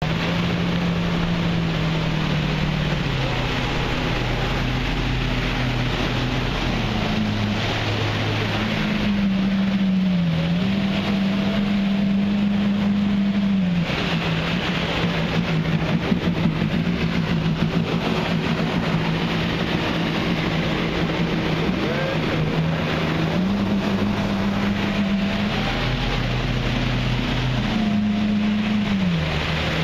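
Marine engine running steadily, its pitch stepping up and down every few seconds as the throttle changes, over the rushing hiss of water spray.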